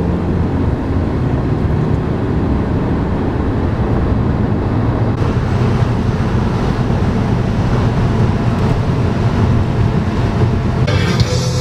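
Steady engine and road noise from a 2009 Volkswagen Passat 2.0 turbo being driven. Music comes in near the end.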